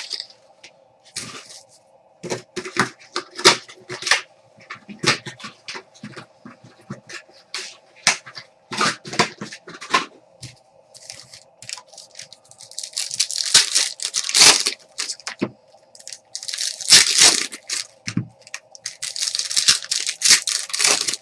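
Trading card pack wrappers being torn open and crinkled, with cards clicking and snapping as they are handled. The loudest sounds are three long tearing rips in the second half.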